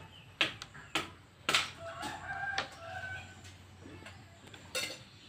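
Small plastic Rubik's cube pieces clacking on a concrete floor as kittens bat them about, several sharp clacks. A rooster crows in the background about two seconds in.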